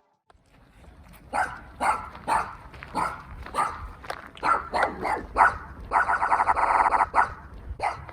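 Shiba Inu dog making a run of short, sharp bursts of sound, about two a second, then a longer buzzing, rapidly pulsing sound lasting about a second around six seconds in.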